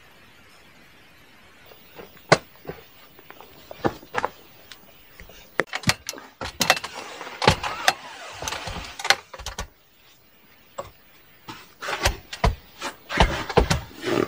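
Handling noise inside a fabric rooftop tent: irregular knocks and clicks with rustling of the tent fabric as someone moves around and handles it, busiest in the middle, with a short lull before more knocks near the end.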